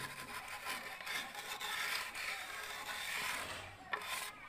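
Trowel scraping wet cement mortar against a wooden straight-edge on a plastered window border, in repeated rasping strokes.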